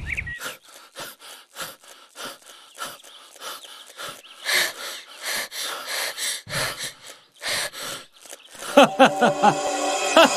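Fast, heavy panting, about three breaths a second, as if from running or struggling. Near the end, music comes in.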